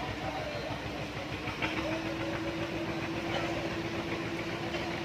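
Small fishing boat's engine running steadily, a low rumble with a steady hum that grows stronger about a third of the way in.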